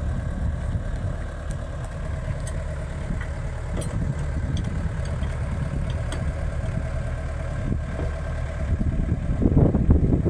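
Engine idling steadily, a constant low rumble with a faint hum over it. Near the end, wind buffets the microphone.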